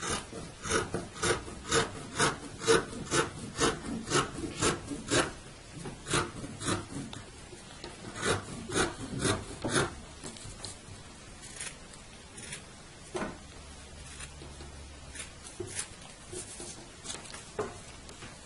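Scissors snipping through thick black velvet fabric in short, crisp cuts, about two a second for the first ten seconds, then slower, scattered snips.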